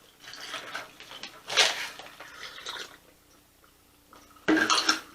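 A person drinking sports drink to cool a mouth burning from hot chips: liquid and swallowing sounds with short, noisy breaths. A louder burst comes near the end.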